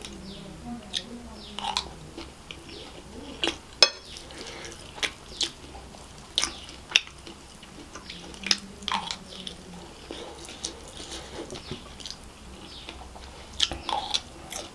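Close-miked chewing of kottu roti, with short wet mouth clicks and smacks every second or so and an occasional click of a wooden spoon against the plate.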